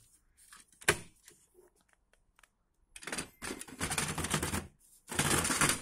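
Plastic toner cartridge snapping into a laser printer's drum unit with one sharp click about a second in, then two spells of dense plastic rattling as the cartridge-and-drum assembly is handled and shaken to spread the toner.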